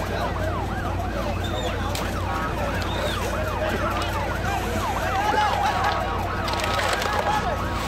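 Emergency vehicle sirens in a fast rising-and-falling yelp, several overlapping, over a steady low hum.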